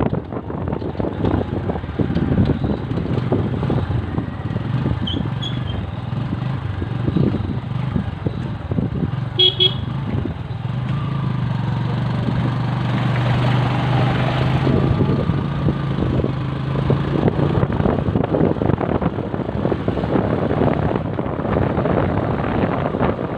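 Motorcycle ride: wind buffeting the microphone over engine and road noise. A short horn beep sounds about nine and a half seconds in, and a steady low engine drone runs from about eleven to seventeen seconds while following close behind a dump truck.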